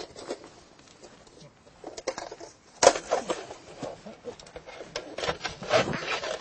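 Small-mammal live traps being checked by hand: irregular close clicks, knocks and rustling, busiest from about three seconds in.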